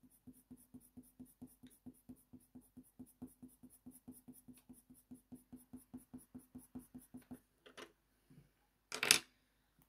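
Faber-Castell Polychromos colour pencil scratching on hot-press watercolour paper in quick, even back-and-forth shading strokes, about four a second, faint. The strokes stop after about seven seconds, and a single short louder sound comes near the end.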